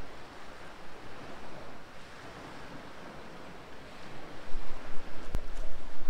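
Sea waves washing on the shore, a steady hiss. From about four and a half seconds in, wind gusts buffet the microphone with a low rumble, and there is one sharp knock a little before the end.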